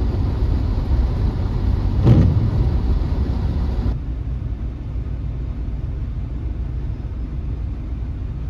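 Van driving down the road, a steady low rumble of engine and tyre noise heard from inside the cab, with a brief louder thump about two seconds in.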